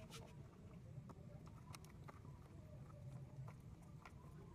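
Faint, irregular small clicks and taps as fingers work the radiator drain petcock under a Peugeot 406, over a low background rumble.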